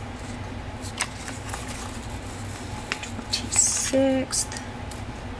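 Sticker sheets and paper being handled: a few light clicks and a short rustle, then a brief pitched sound just after four seconds, over a steady low hum.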